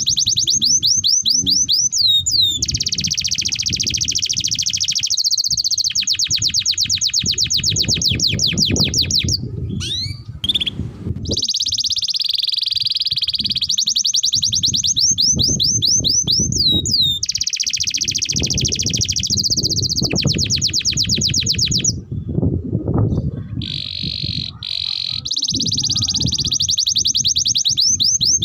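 Domestic canary singing long rolling trills, each phrase a rapid run of repeated notes, one phrase following another with brief breaks, over a low background rumble.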